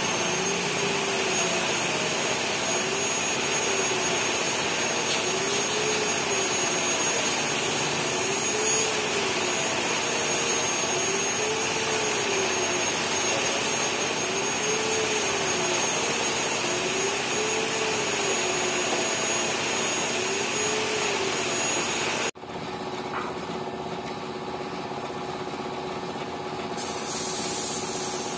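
Compressed-air spray gun hissing steadily as finish is sprayed onto wood, with a faint hum underneath that swells and fades about every two seconds. The hiss cuts off abruptly about 22 seconds in, leaving a quieter hum, and starts again near the end.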